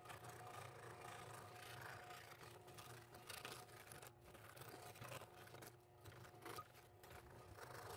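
Scroll saw running, its fine blade cutting slowly through acrylic sheet; a faint, steady motor hum under a light cutting texture.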